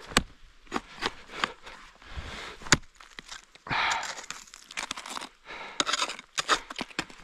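Ice-axe picks and crampon points biting into waterfall ice in a run of sharp, irregular impacts, with hard breathing in between.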